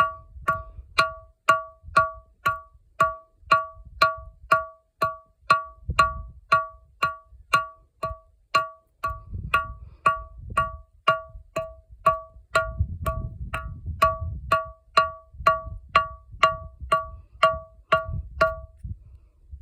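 A large volcanic sound rock (ringing rock) struck over and over at a steady pace of about two strikes a second. Each strike gives a short, high, bell-like ring. The strikes stop near the end, and a low rumble comes and goes underneath.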